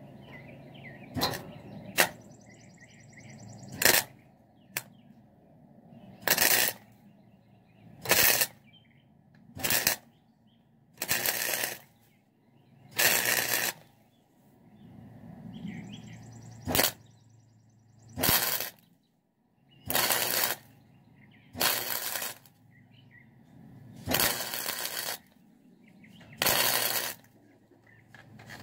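Welder striking an arc in about a dozen short bursts, each under a second with brief pauses between, as old rivet holes in the sheet steel of a toolbox are welded shut.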